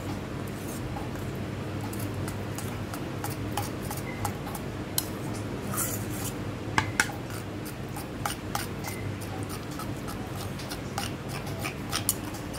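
Steel spoon stirring a thick flour-and-water paste in a steel bowl, scraping and clinking against the bowl again and again, with a couple of sharper clinks about seven seconds in. A steady low hum runs underneath.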